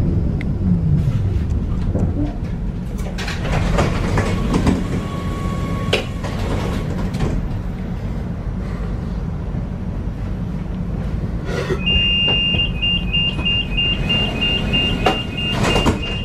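Tram standing with a steady low rumble from its equipment, with scattered clunks and knocks, then from about twelve seconds in a high, rapidly repeated beeping: the tram's door-closing warning.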